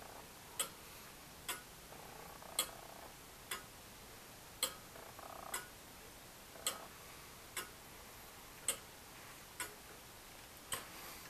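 A 1690 William Clement 30-hour longcase clock with an anchor escapement, ticking. Each beat is a sharp click, about one a second, and the gaps alternate slightly shorter and longer.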